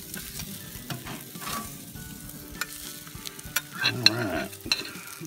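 Burgers sizzling on a charcoal grill, with sharp clicks and scrapes of a metal spatula against the grate as patties are lifted off. A short wavering vocal sound comes about four seconds in.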